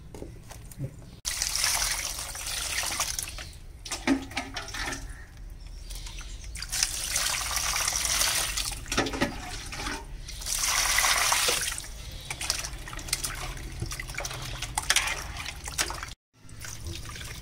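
Water splashing and sloshing in an aluminium basin as hands wash chunks of raw goat offal. It starts suddenly about a second in and comes in repeated surges, with a brief break near the end.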